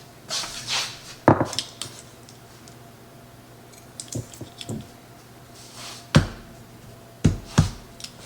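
Kitchen utensils and dishes being handled: scattered clinks and knocks, the sharpest about a second in, around six seconds in and twice near the end, with a brief scraping rustle at the start.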